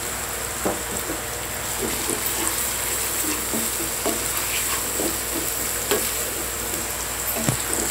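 Onions and ginger-garlic paste sizzling in hot oil in a frying pan, stirred with a wooden spatula that scrapes and knocks against the pan in repeated short strokes.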